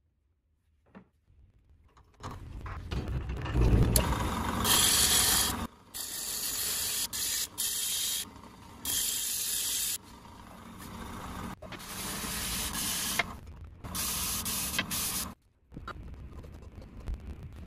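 Drill press running with a sanding disc pressed onto the face of a wooden plate, a rough steady sanding rush in several short clips that cut in and out abruptly. The first two seconds are near silence.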